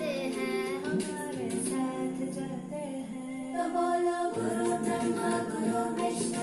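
A group of children singing a song, holding long sustained notes that change pitch a couple of times.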